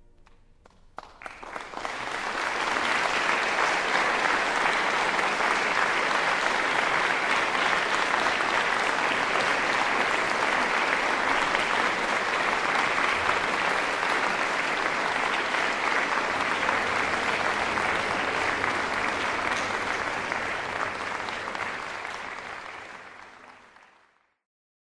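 Concert audience applauding at the end of the concerto: a few scattered claps about a second in swell quickly into dense, sustained applause, which fades out near the end.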